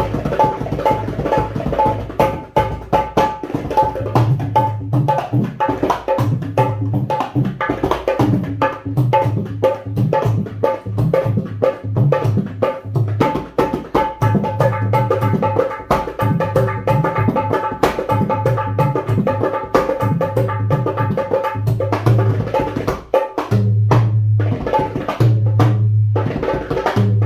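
Dholak, a two-headed barrel drum, played by hand in a fast, continuous rhythm: deep bass-head strokes that ring on under quick, sharper treble-head strokes. The drum is being played to check the tone of a newly made instrument.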